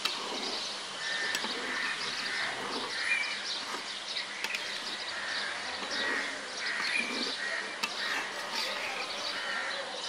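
Small birds chirping over and over, with an even hiss underneath and a few sharp clicks, as a metal spatula stirs chickpeas in an aluminium karahi.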